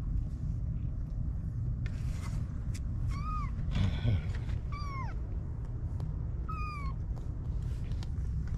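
Young kittens, about 25 days old, mewing three times in short high-pitched mews, the second falling in pitch, with a few soft scuffles as they scramble on a blanket in a cardboard box. A steady low rumble runs underneath.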